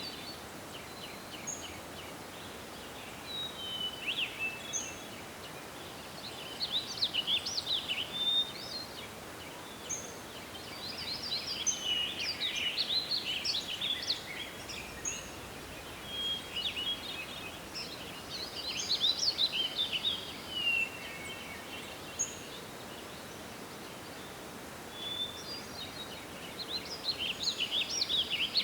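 Songbirds singing in a forest, several phrases of rapid chirps and trills coming every few seconds, over a steady hiss of wind.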